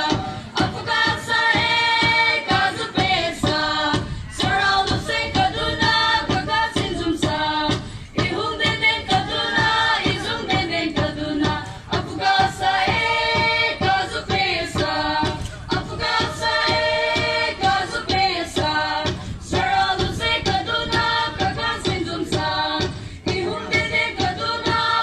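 A group of voices singing a dance song together over a steady beat.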